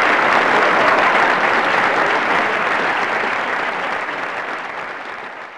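Crowd applause, a dense even clapping that fades out gradually over the second half.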